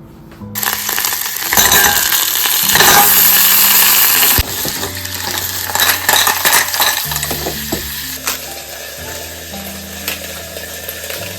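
Food sizzling in a frying pan, loud for the first few seconds and cutting off sharply, then a quieter sizzle with light clinks of a utensil.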